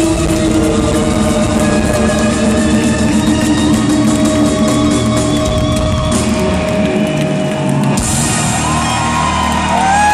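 Live rock band playing loud: drum kit and guitar under long held notes, with an abrupt change in the sound about eight seconds in and new gliding held notes near the end.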